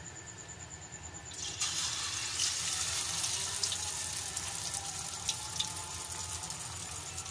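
A spaghetti-and-potato cutlet slid into hot oil in an aluminium karahi starts sizzling about one and a half seconds in: a sudden, steady frying hiss with a few sharp pops, the oil bubbling hard around it.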